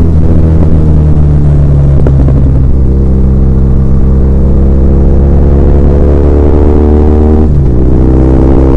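BMW R1200R's air/oil-cooled boxer twin running under way, loud and steady, its note climbing slowly as it pulls, then changing abruptly near the end as a gear is shifted.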